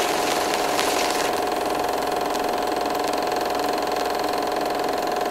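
A small motor running steadily, with a constant mid-pitched hum and no change in speed.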